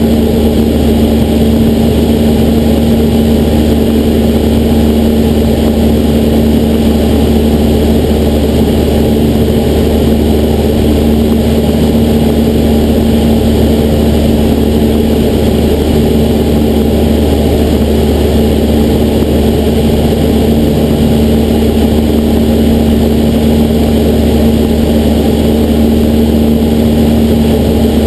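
Cessna 172SP's Lycoming IO-360 four-cylinder engine and propeller droning steadily in flight at constant power, loud and unchanging.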